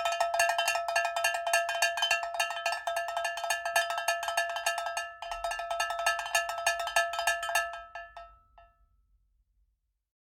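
Rapid run of metallic, bell-like strikes, many a second, all on one clear ringing pitch, with a brief break about five seconds in; the strikes thin out and die away about eight to nine seconds in.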